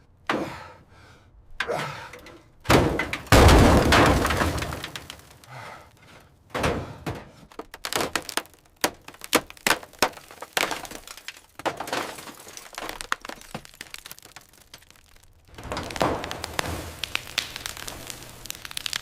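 Irregular sharp cracks, knocks and thuds. The loudest come about three and three and a half seconds in, followed by a run of quicker clicks and knocks in the middle.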